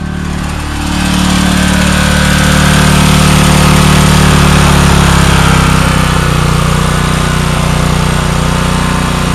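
Generator set's engine running steadily after a cold start, on fresh fuel fed into its carburetor. It gets louder about a second in, and its note eases slightly around six seconds in.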